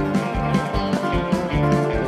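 Live band playing an instrumental passage, with a picked acoustic guitar over a steady beat of about two and a half thumps a second from bass and drums.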